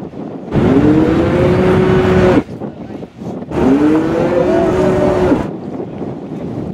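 A cow-moo horn on the Milka cow boat sounds two long moos of about two seconds each. Each moo swoops up at the start, holds, and bends down at the end. Wind buffets the microphone between and after them.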